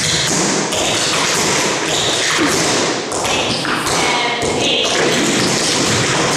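Tap shoes striking a wooden studio floor: several dancers tapping out steps together in quick, dense clusters of clicks and heavier thuds.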